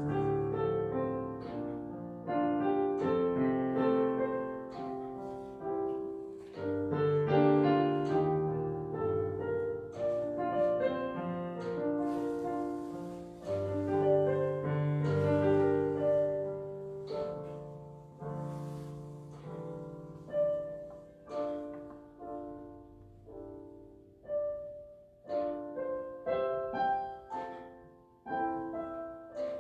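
Solo piano playing a slow piece: full, sustained chords for the first two-thirds, thinning in the last third to single notes struck one at a time.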